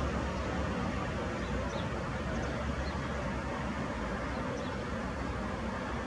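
Steady low rumble of distant city traffic, with a few faint high bird chirps scattered through it.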